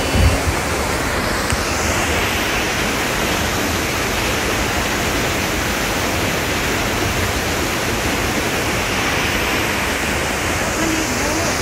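Waterfall and rocky mountain stream rushing: a steady, even hiss of falling and tumbling water, with a brief low thump at the start.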